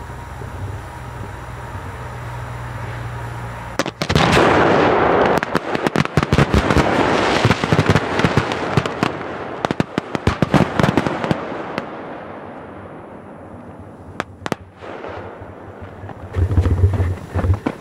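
A big load of firecrackers going off: a sudden loud bang about four seconds in, then a rapid, dense barrage of cracks and bangs for around eight seconds that thins out to a few scattered cracks. A low rumble comes before the first bang and again near the end.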